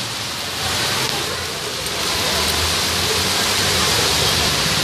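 Heavy rain falling on a paved street: a steady, dense hiss with a low rumble underneath.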